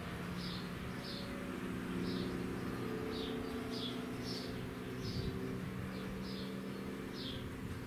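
A small bird chirping over and over, short falling chirps about one or two a second, over a low steady mechanical hum.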